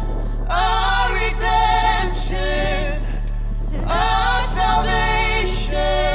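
Live worship band music: voices singing long, held phrases over a steady low drone.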